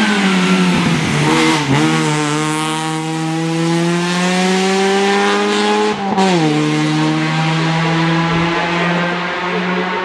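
Opel Astra rally car's engine under hard acceleration. Its pitch dips briefly at a gear change near the start, then climbs steadily for about four seconds and drops sharply at another upshift about six seconds in. After that it holds fairly steady as the car pulls away.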